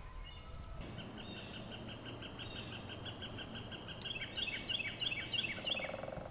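Wild songbirds singing. A steady high trill starts about a second in, and a run of quick descending notes follows in the second half. A short low buzzy rattle comes near the end.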